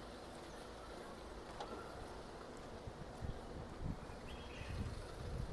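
Quiet street ambience with a faint steady hum of distant traffic. From about three seconds in there are irregular low thuds and rumbles on the microphone, and a brief high chirp a little past four seconds.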